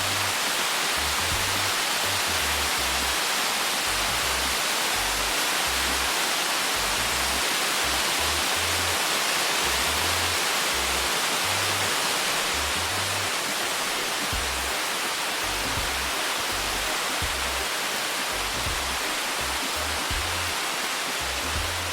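Steady rush of a river waterfall pouring over rocks, close to the microphone.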